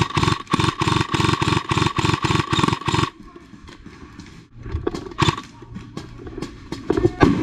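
Paintball marker fired rapidly, about five shots a second for three seconds, with a steady whine underneath. Then a few single shots near the end.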